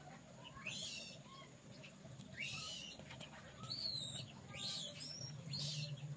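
Small birds chirping: short, high, sliding chirps about once a second.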